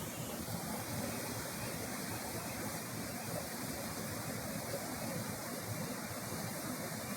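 Steady rush of a waterfall: even, unbroken water noise.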